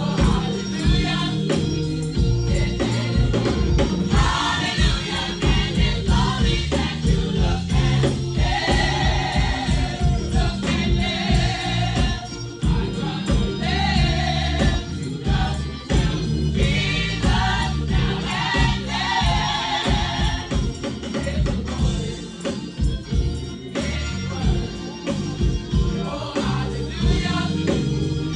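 Gospel choir singing in phrases over a live church band with a steady beat, a tambourine shaking along.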